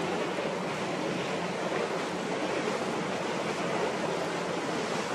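Steady rush of wind on the microphone and water along a small passenger ferry under way on choppy estuary water.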